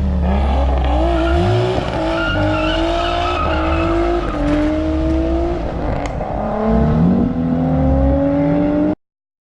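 Car engine accelerating hard, its pitch climbing and then dropping at each of several gear changes, before the sound cuts off suddenly.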